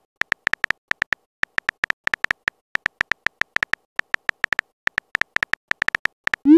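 Texting-app keypress sound effect: a quick run of short, identical high beeps, about six a second in little bursts, as emojis are typed in. It ends with a short rising swoop.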